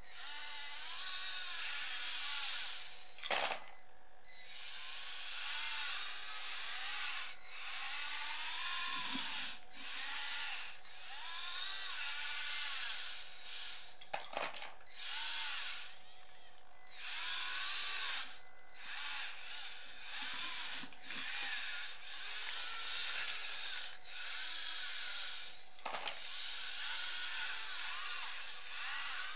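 Small electric drive motors and plastic gearboxes of an RC Bruder skid steer loader whining, the pitch rising and falling as it starts, stops and changes speed. Three sharp knocks come at about three and a half, fourteen and twenty-six seconds.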